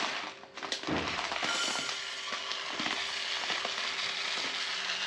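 Dry rice grains poured from a plastic bag into an empty stainless steel pot, a steady crackling hiss of grains hitting the metal that starts about a second in.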